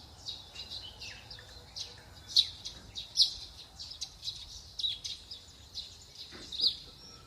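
Birds chirping: many short, high calls, some sweeping downward, repeating every half second or so over faint outdoor background noise.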